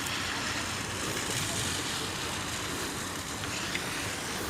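Steady outdoor noise with wind buffeting the microphone, a choppy low rumble under an even hiss.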